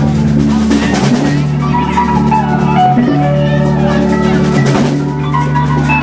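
Live band playing a jam: drum kit keeping the beat under held keyboard chords and guitar, with a steady low bass line.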